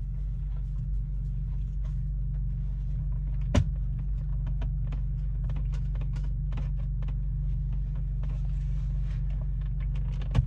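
Scattered light clicks and taps of a camera power cable being pulled back out from under plastic car interior trim, with one sharper knock about three and a half seconds in, over a steady low rumble inside the car.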